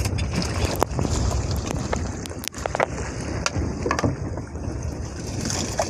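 Wind buffeting the microphone on an open fishing boat, with scattered knocks and thumps as a yellowfin tuna is shoved into the wooden boat's fish hold.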